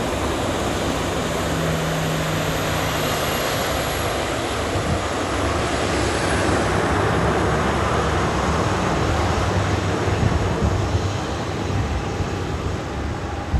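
Boeing 737 jet engines running loud and steady during takeoff: a dense rush of noise with a low hum underneath.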